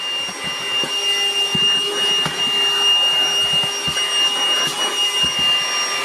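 Hikeren H305 cordless handheld vacuum running steadily with a high-pitched motor whine as it is passed over a desk, with a scatter of light knocks.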